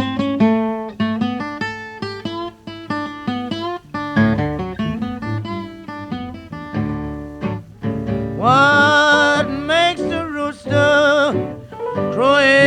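A 1928 blues recording opening with a solo acoustic guitar introduction of single picked notes and runs, with bent notes. A male voice comes in singing over the guitar about eight seconds in.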